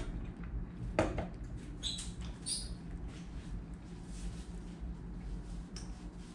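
A paper cup set down on a table with a single sharp knock about a second in, followed by the rustle and brief squeaks of a paper tissue as hands and face are wiped.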